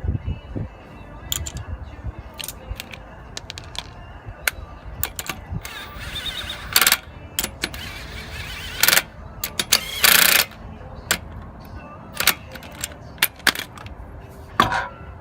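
Metal clinking and rattling of lug nuts and a lug wrench as a wheel is being fitted back onto its studs and the nuts started by hand. There are many short sharp clinks, with a few longer rattles about seven, nine and ten seconds in.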